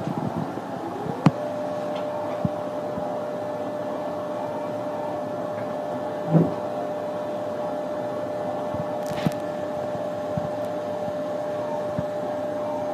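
Resin (SLA) 3D printer initializing: a motor whine rises in pitch about a second in, then holds one steady tone as the build platform moves, over a constant fan-like hum. A few light clicks and one louder knock about halfway through.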